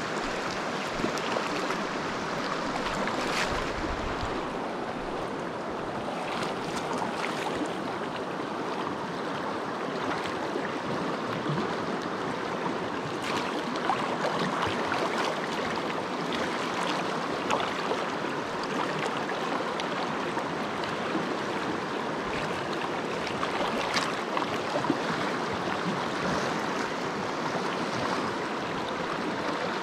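A shallow, rocky stream flowing steadily close by, an even rush of water, with a few brief sharp sounds over it.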